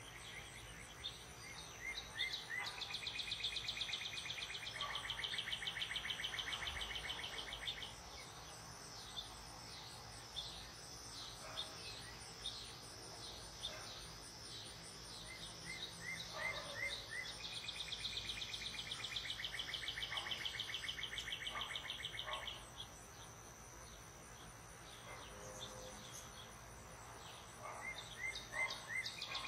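Evening garden chorus: a steady high-pitched cricket drone with a faster pulsing insect sound above it. Twice, a bird sings a few short rising notes and then a rapid trill that lasts about five seconds.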